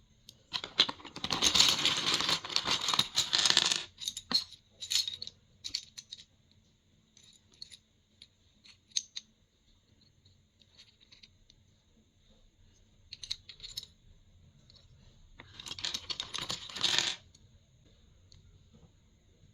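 Plastic keycaps being handled and unpacked: a few seconds of dense rattling clatter, then scattered clicks, and another shorter burst of clatter near the end.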